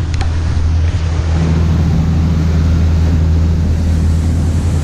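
Boat engine droning steadily at cruising speed, about 13 knots, with a constant low hum over a rush of wind and water.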